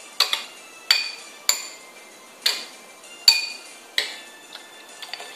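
A metal spoon clinking and scraping against a small bowl as a child stirs and scoops. There are about seven sharp clinks at irregular intervals, each with a brief ring.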